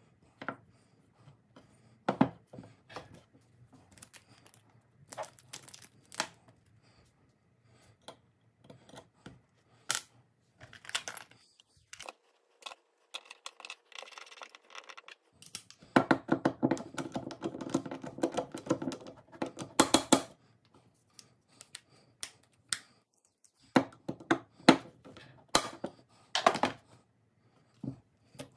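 Small metal pistol parts handled by hand on a paper-towel-covered bench: scattered light clicks and taps of a pistol slide, sight and screws. About two-thirds of the way through come a few seconds of dense, rapid clicking.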